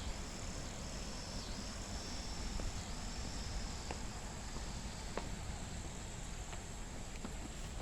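Insects calling in a steady high chorus, with a pulsed, repeating call standing out for the first few seconds before it fades. A low rumble runs underneath.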